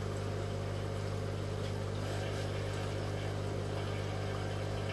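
Steady low electric hum of an aquarium air pump driving the sponge filters.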